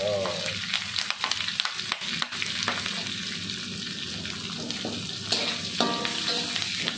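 Shallots, garlic and chillies sizzling as they hit hot oil in a wok, stirred with a metal spatula that scrapes and clicks against the pan.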